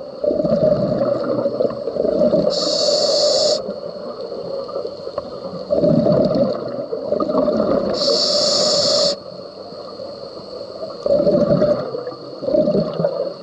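Scuba breathing underwater: surges of exhaled bubbles gurgling and rumbling past the microphone, with two sharp hisses of air through the regulator about five and a half seconds apart, each lasting about a second.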